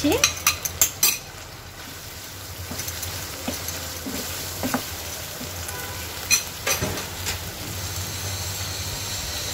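Chicken and mushrooms frying in butter and oil in a pan, sizzling steadily while a spoon stirs them. There are several sharp clacks of the utensil against the pan in the first second, and a few more about six to seven seconds in.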